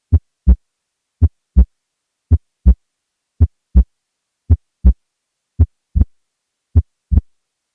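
Heart sounds in a steady lub-dub rhythm: seven beats, each a pair of short low thuds (S1, then S2 about a third of a second later), at about 55 beats a minute. The second sound is as loud as the first. This is an example of an unusually loud P2, which is suggestive of pulmonary hypertension.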